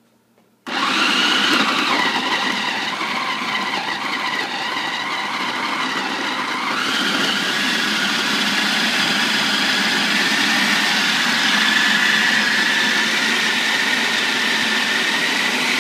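Food processor motor starting up abruptly just under a second in, then running steadily as it grinds soaked dates and pecans into a crust mixture. Its whining tone shifts about seven seconds in.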